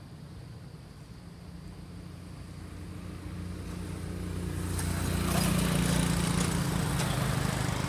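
A motor vehicle driving along the road, growing louder as it approaches: engine hum with tyre hiss, loudest from about five seconds in.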